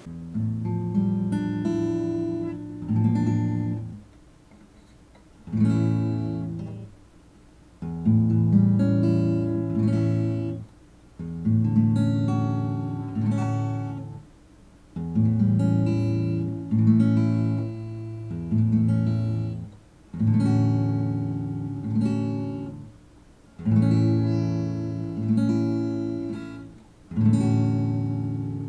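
Background music: an acoustic guitar strumming chords in phrases of a few seconds, with brief pauses between them.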